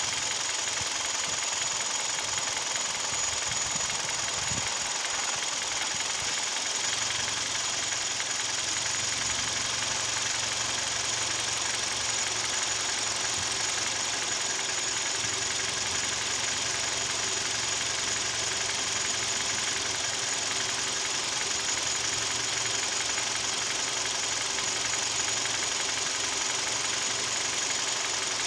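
Hyundai/Kia G4KD 2.0-litre Theta II four-cylinder petrol engine running steadily with a knock, which the owner takes for piston knock. A low hum joins about a quarter of the way in.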